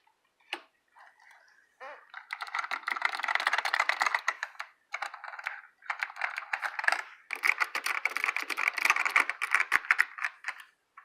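kidBoard KB-PC09 keyboard with clicky white Alps switches being typed on fast and unevenly: a few scattered key clicks, then from about two seconds in dense runs of clicking broken by two short pauses.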